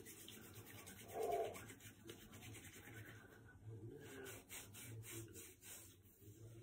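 Faint rubbing of oiled hands: palms rubbed together, then fingers working beard oil through a full beard. A brief muffled sound about a second in stands out above the rubbing.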